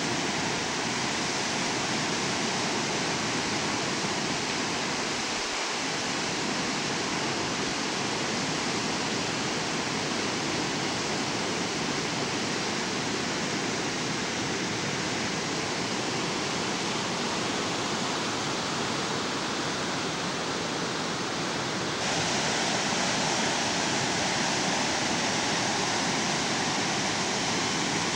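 Whitewater river rushing through a narrow rock gorge far below: a steady, even wash of water noise that steps up slightly louder and brighter about two-thirds of the way through.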